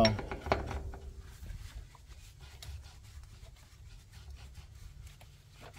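Ferguson TO20 clutch shaft being slid and worked into its freshly polished bushings: faint metal rubbing and scraping with scattered light ticks, from a snug fit.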